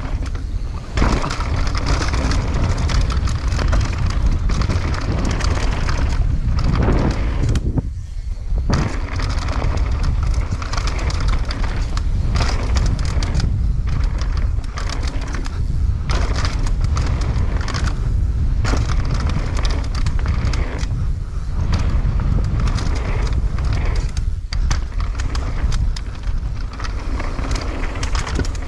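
Mountain bike riding fast down a dirt trail: tyres rolling over the ground and the bike rattling, with many short knocks over bumps and jumps, under a heavy rumble of wind buffeting the camera's microphone.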